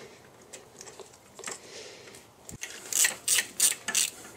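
A 13 mm wrench working the nut on the positive battery cable terminal: light metallic clicks, then a quick run of about five sharp ratchet clicks about three seconds in.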